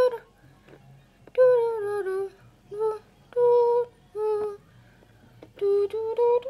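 A high voice humming a tune in short melodic phrases, with brief pauses between them.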